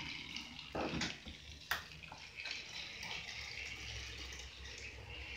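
Battery-powered toy Thomas train running along plastic track with a steady whir, with a knock just under a second in and a sharp click shortly after.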